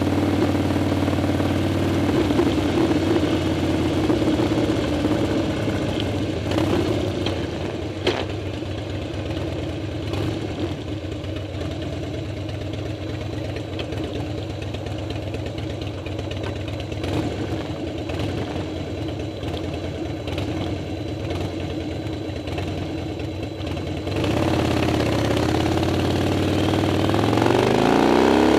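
Harley-Davidson Dyna's air-cooled V-twin engine, heard through a camera fixed to the bike: running as the bike slows, with a single click about eight seconds in, then idling steadily at a red light for much of the time. The engine gets louder about twenty-four seconds in and its pitch climbs near the end as the bike pulls away.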